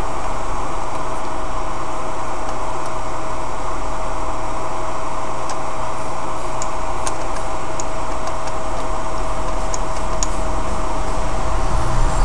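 Steady hiss with a constant mid-pitched whine running underneath; a few faint ticks come about halfway through.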